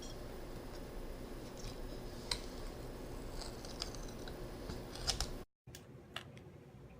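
A few light clicks and ticks from handling small laptop parts during a MacBook Pro hard-drive cable swap, over a low steady room hiss. The sound cuts out for a moment about five and a half seconds in, and the hiss is quieter after it.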